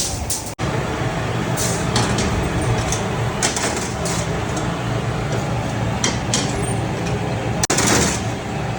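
Factory machinery running with a steady low hum, with several short, sharp noises from work going on over it.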